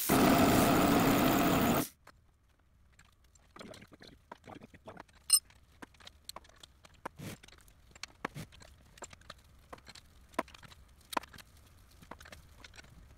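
Compressed-air blow gun blasting at the steel rack for about two seconds, then cutting off suddenly. After it come scattered light clicks and knocks of hands working on the rack, with one sharp metallic clink about five seconds in.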